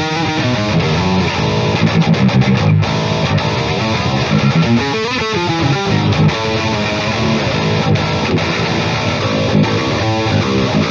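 Strandberg Boden 7 True Temperament seven-string electric guitar with Fishman Fluence Modern pickups, playing a heavy, distorted rhythm riff as part of a pickup-position tone demo.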